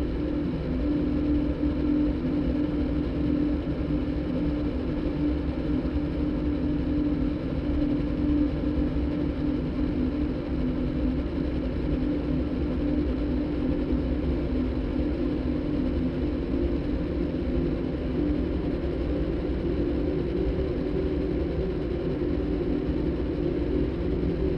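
Steady droning electronic soundtrack made by cross-synthesizing a motorbike engine's sound with a recording of a đàn bầu (Vietnamese monochord zither). It gives an engine-like rumble under a held, pitched hum.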